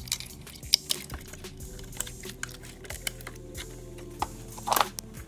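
Irregular light clicks and clacks of plastic wiring-harness connectors being handled and plugged back in around the intake, with a louder clatter near the end. Quiet background music runs underneath.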